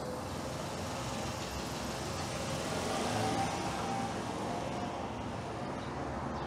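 A car passing on the road: steady engine and tyre noise that swells to a peak about three seconds in and eases off slightly afterwards.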